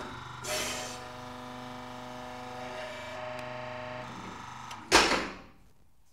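The deep sea pressure chamber's pressure of about 290 bar being released: a short hiss about half a second in, then a sudden loud burst near the end that dies away within half a second. Steady background music tones play until the burst.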